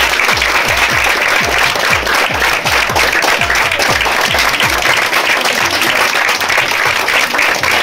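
Crowd applauding over music with a steady low drum beat; the beat drops out about five seconds in while the clapping goes on.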